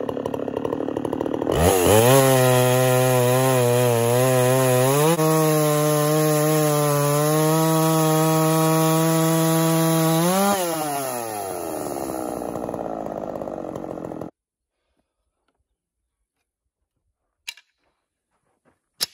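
Chainsaw on an Alaskan chainsaw mill ripping a blue pine log. It revs up from idle about a second and a half in, holds steady at high revs through the cut, and drops back to idle about ten seconds in as the cut ends. The sound then cuts off suddenly, leaving near silence with a couple of faint knocks.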